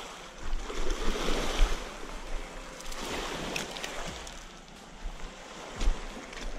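Small waves washing up and draining back over a pebble shore, swelling louder twice, with wind rumbling on the microphone and a few short knocks.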